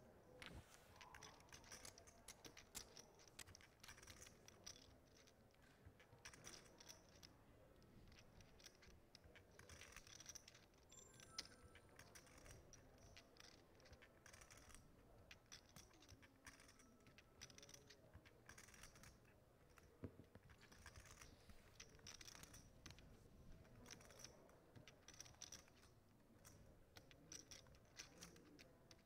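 Near silence with faint, irregular clicking and clacking of poker chips being handled at the table.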